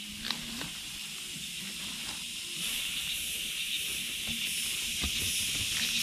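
Dry grass and leaf litter rustling as it is pulled and gathered by hand, with a few faint crackles; the steady high hiss grows louder about halfway through.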